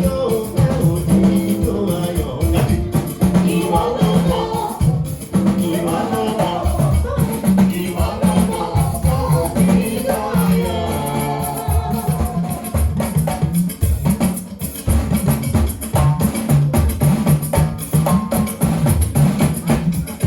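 A live band at a sound check: a singer over drums, bass and percussion. The voice is prominent for roughly the first twelve seconds, then the drums and bass carry on with little or no singing.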